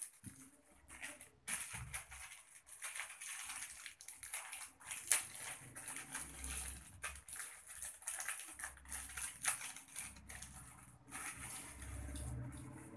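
A small clear plastic packet of decorative stones crinkling and rustling in a pair of hands, an irregular crackling that goes on throughout.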